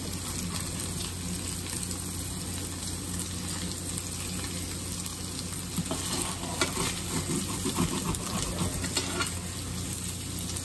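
Sea robin roe and onions sizzling and crackling in a frying pan, with a steady low hum underneath. The crackling grows busier and louder, with sharper clicks, about six seconds in for a few seconds.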